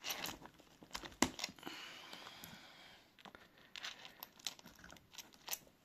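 Scattered clicks and rustling of cables and plugs being handled as a power adapter is unplugged and plugged back in, with one sharper click about a second in and a faint high whine for a second or so after it.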